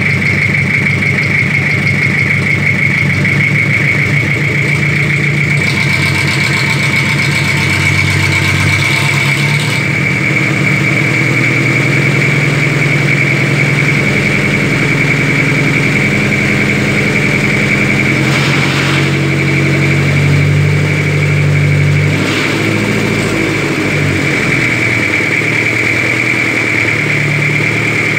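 Toyota 1C diesel engine, a bare inline-four out of its vehicle, running loudly, its speed shifting up and down a few times.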